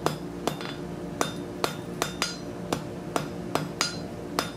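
Hand hammer striking welding-hot steel scroll pieces on an anvil to forge-weld them together: about ten blows, a little over two a second, each with a short metallic ring.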